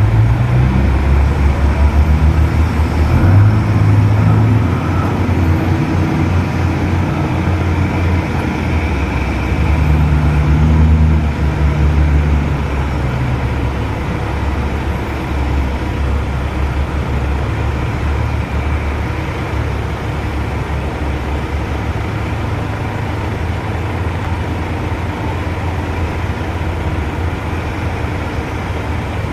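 Heavy diesel engine of large mining machinery running. It works harder and rises in pitch in swells during the first dozen seconds, then settles into a steadier, lower drone.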